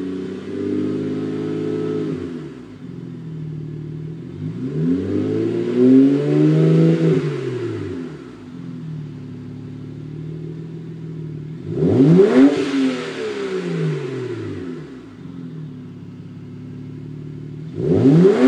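BMW E61 535i's N54 twin-turbo straight-six revved through a custom muffler-delete exhaust with an H-pipe. It is blipped from idle several times: one slower rise and fall, then two quick sharp blips, settling back to a steady idle between them.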